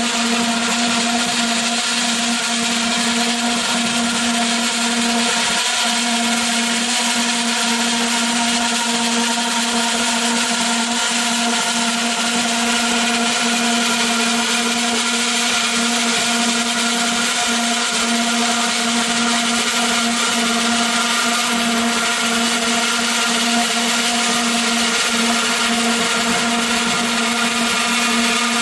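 Summa 740 Plastic Cut band saw running steadily: an unbroken hum with several higher steady tones over a hiss.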